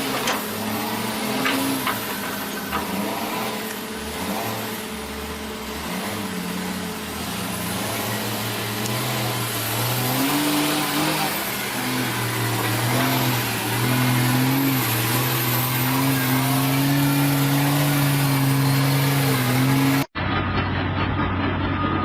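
A heavy vehicle's engine running and revving, its pitch rising and falling, with a few knocks in the first seconds. Just after twenty seconds in, the sound cuts off abruptly and a duller engine sound carries on.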